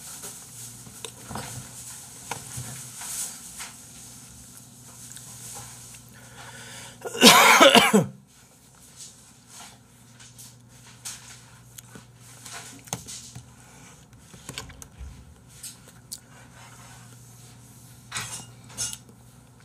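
Light clicks and knocks of small things handled on a desk, including keyboard keys near the end, over a faint steady hum. About seven seconds in there is one loud, harsh sound lasting under a second.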